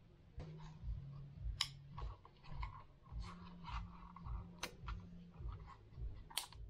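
Handling noise from a small plastic handheld fogger being turned over in the hands, with scattered light rustles and taps and three sharper clicks.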